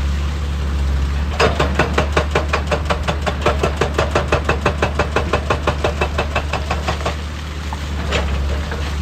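Excavator's diesel engine running steadily while a hydraulic rock breaker hammers rock in a fast, even series of blows, about six a second for five or six seconds, then stops; a single knock follows near the end.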